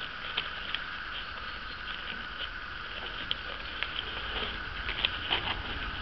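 Small items being handled and rummaged in a fabric pouch: scattered light clicks and rustles, a few more together about five seconds in, over a steady faint high background hum.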